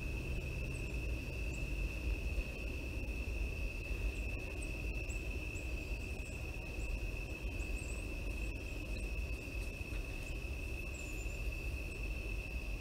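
Night insects, likely crickets, trilling steadily on one high pitch without a break, with scattered faint higher chirps, over a low steady rumble.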